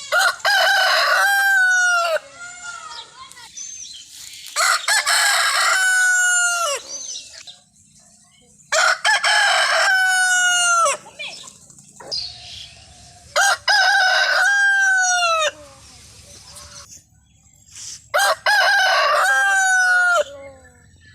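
Desi roosters crowing: five loud cock-a-doodle-doo crows about four to five seconds apart, each about two seconds long and ending in a long falling note.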